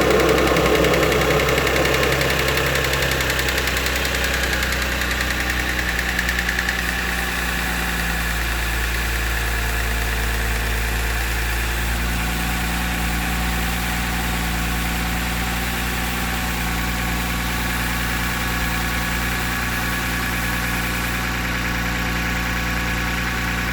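Car engine idling just after a cold start, with a light, rapid ticking over the steady run. The idle eases slightly over the first several seconds and then holds steady.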